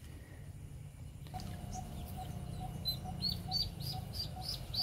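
Duckling peeping: a run of short, high peeps a few times a second, starting about a second in.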